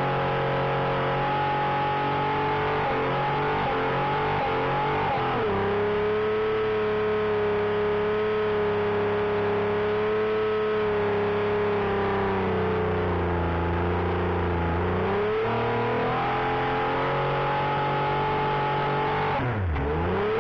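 Holden Commodore's Buick 3.8 V6 held at high revs during a burnout, with the hiss of spinning tyres; the revs sag and climb back a few times, with a sharp dip and recovery near the end.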